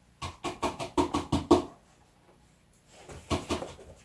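Quick run of hollow knocks, about five a second, then a few softer ones near the end, from a hand pumping the cone of a DD Audio Redline 815d 15-inch subwoofer to test its suspension, which is fairly loose.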